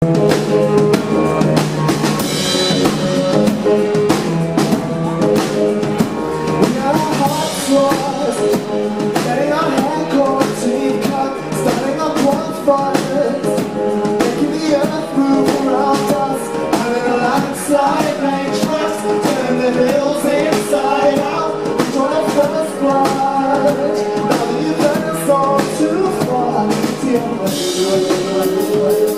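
Live band playing a song: a drum kit keeps a steady beat under electric guitar, with a lead voice and backing singers singing.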